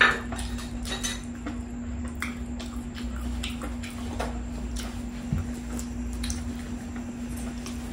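Close-up eating sounds: wet chewing and small mouth clicks, irregular and ongoing, with a sharp click right at the start. A steady low hum runs underneath.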